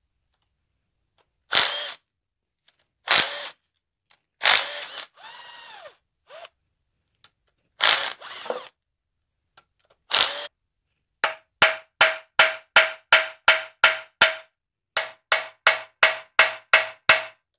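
Cordless impact driver running in several short bursts on the bolts of a Copeland semi-hermetic compressor's end cover, then a hammer tapping on the cast-iron end about three times a second in two runs of sharp, ringing metal strikes.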